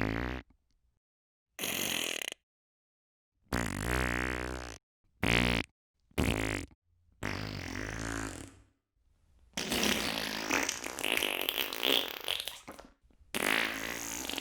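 A series of about eight separate farts with short silences between them: loud flappers and quick rippers, several lasting under a second, a longer one near eight seconds and the longest, about three seconds, starting about ten seconds in.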